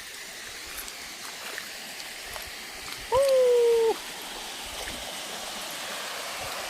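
Water rushing steadily down a natural waterfall. About three seconds in comes a single loud pitched call, under a second long.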